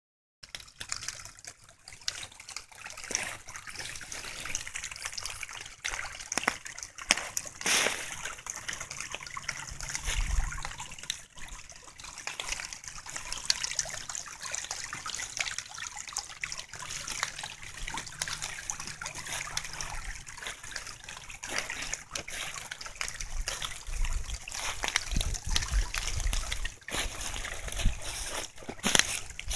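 Small rain-fed creek flowing, a steady trickle and splash of running water, with occasional low rumbles about ten seconds in and again near the end.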